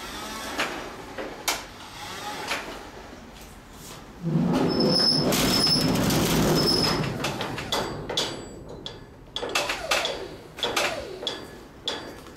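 Forklift at work: its motor runs loudly for about three seconds, starting about four seconds in, with three short high beeps. Then comes a string of sharp clanks and knocks.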